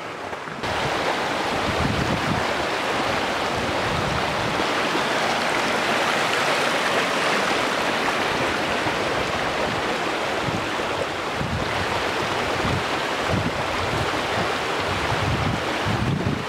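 Steady loud rushing noise that starts abruptly about half a second in, with irregular low thumps of wind buffeting the microphone.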